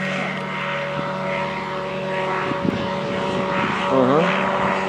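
Ultralight trike's Rotax 532 two-stroke twin engine and propeller droning steadily in flight, on a test run of the engine. The note dips briefly in pitch about four seconds in.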